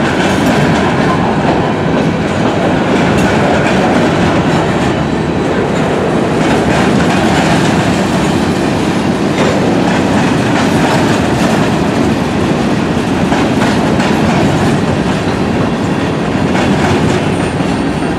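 A freight train of covered hopper cars rolling past close by: a steady, loud rumble and rattle of wheels on rail with scattered clicks. The last cars go by near the end.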